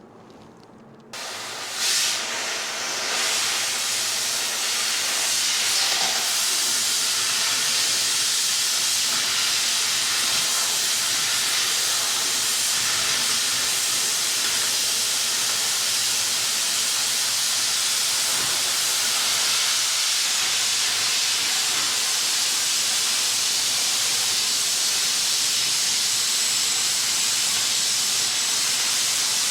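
Oxy-fuel cutting torch hissing steadily as it cuts through steel; the hiss starts suddenly about a second in.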